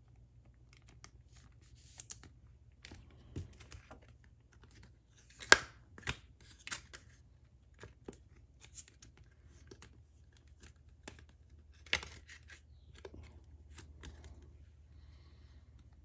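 A trading card being handled and slid into clear plastic protection, a soft sleeve and then a rigid toploader: light plastic rustling and scattered clicks, with a sharper snap about five and a half seconds in and another near twelve seconds.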